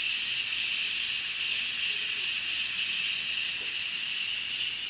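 Instant Pot electric pressure cooker venting steam through its pressure release valve in a steady, high hiss: a quick release of pressure after cooking, before the lid is safe to open.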